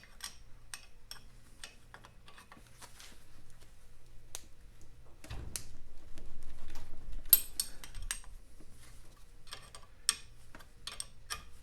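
Metal hand-tool work on a motorcycle crank assembly: irregular light clicks and clinks of a spanner and small steel parts, with a louder stretch of clunking and handling about halfway through and a single sharp click near the end.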